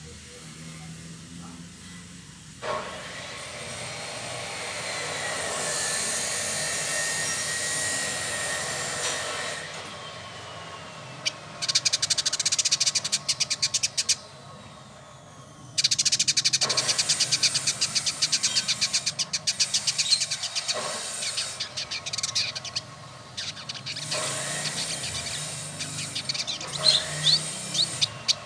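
Male village indigobird singing: a drawn-out whistled note early on, then repeated bursts of fast, rapid-fire chattering notes.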